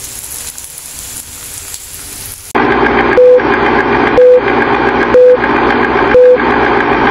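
Pork and eggplant frying in a pan with a steady sizzle; about two and a half seconds in, a film-countdown leader sound cuts in, louder: a noisy rattle with a short beep once a second.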